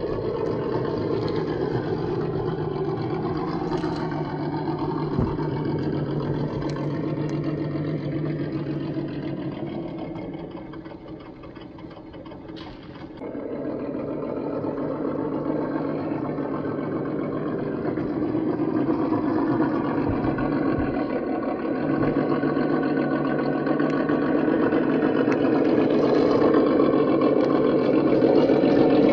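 1:10-scale RGT EX86190 RC rock crawler's electric motor and gear drivetrain whining as it crawls over rocks. The sound dips quieter around the middle, then grows louder toward the end.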